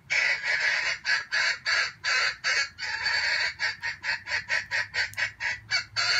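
Junglefowl cackling in a fast series of harsh calls, about four a second and quickening after a few seconds.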